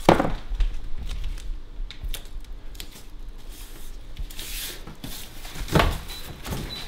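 Plastic masking film and tape being rubbed and pressed down by hand over a dishwasher door: rustling and scuffing of the plastic, with short swishes at the start, about four and a half seconds in and just before six seconds.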